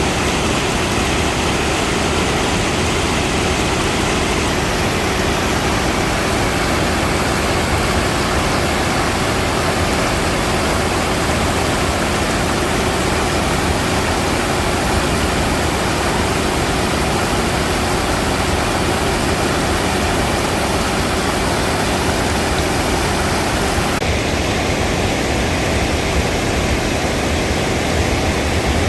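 Loud, steady rush of falling water from a waterfall, even throughout, shifting slightly in tone about 24 seconds in.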